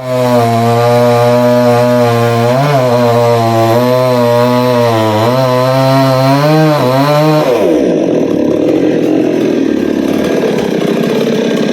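Chainsaw running at high revs and cutting coconut palm wood, its pitch wavering, rising and dipping under the load. After about seven and a half seconds the clear engine tone gives way to a rougher, noisier sound.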